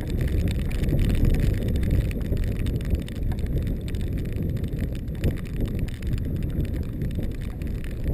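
Wind buffeting a camera microphone: a loud, uneven low rumble.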